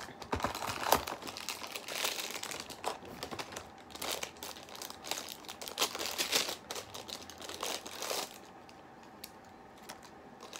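Small plastic blind-bag wrapper of a Disney Doorables mini figure crinkling and tearing as it is worked open by hand, in irregular bursts that stop about two seconds before the end.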